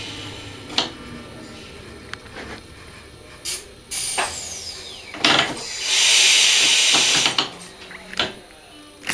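Clicks and knocks inside a train driver's cab. About four seconds in, a thin whistle falls in pitch, followed by a loud hiss lasting about a second and a half.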